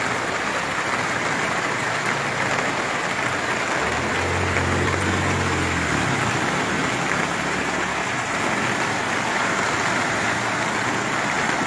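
Muddy floodwater rushing through a street in heavy rain: a steady, even rush of water. A low engine hum joins in for a few seconds around the middle.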